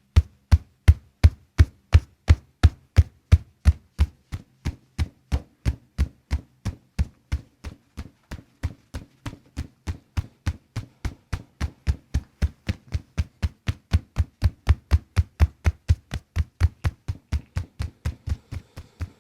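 Steady series of sharp percussive taps, about three a second, each a click with a dull thud, repeating evenly with some rise and fall in strength: a chiropractor's percussive adjusting on the body.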